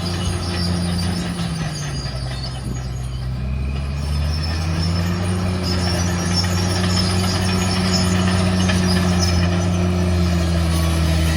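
Heavy dump truck's diesel engine running, its pitch dropping briefly about two seconds in, then rising and holding steady higher, with faint high squeals over it.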